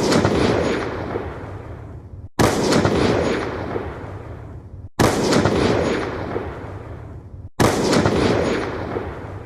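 Ballista sound effect ('Ballista Slow'): a sudden loud shot that fades away over about two seconds, repeated about every two and a half seconds, three times plus the tail of one more.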